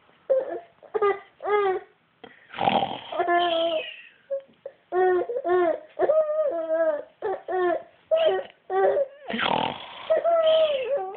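A young child making fake snores: two loud raspy snorts, one about two and a half seconds in and one about nine and a half seconds in, between runs of short high-pitched squealing vocal sounds.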